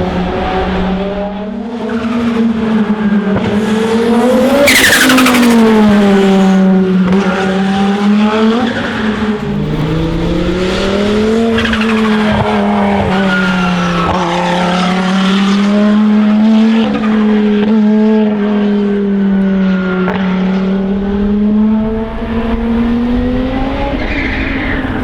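Gebhardt C2 Le Mans race car's turbocharged five-cylinder engine driven hard, its revs climbing and dropping again and again through gear changes, with a high turbo whistle over the engine note. About five seconds in there is a sharp burst with a falling whistle.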